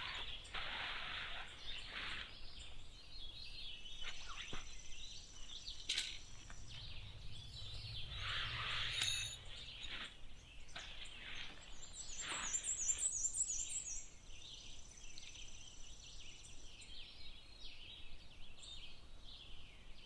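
Faint rustling of nylon tent fabric and its stuff sack, with scattered clicks of tent poles, as a small tent is pitched. Songbirds call over it, with a quick trill of repeated high notes past the middle.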